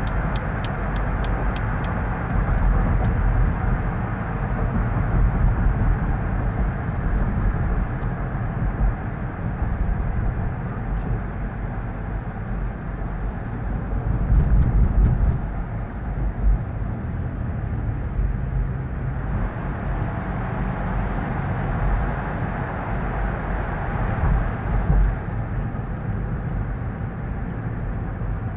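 Road noise inside a moving car's cabin: a steady low engine and tyre rumble with tyre hiss, which grows louder for several seconds past the middle before easing back.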